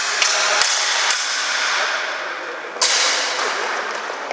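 Steel training swords clashing in sparring: three sharp clangs in quick succession in the first second or so, then a harder one near three seconds in, each leaving a high ringing tail.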